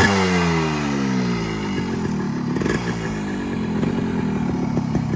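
Yamaha RX 115's two-stroke single-cylinder engine coming down from a rev, its pitch falling over the first two seconds, then settling into a steady, crackly idle.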